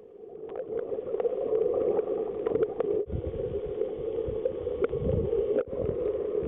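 Muffled underwater water noise picked up through the sealed body of a waterproof pocket camera while snorkeling, with scattered small clicks and low rumbles. The sound breaks off abruptly twice, about three seconds in and again a little past five seconds, as the shots change.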